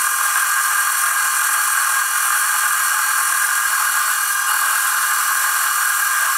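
Warco WM180 mini lathe running steadily while a CCMT carbide insert takes a 0.25 mm depth of cut along a mild steel bar: motor and gear drive running with the hiss of the cut.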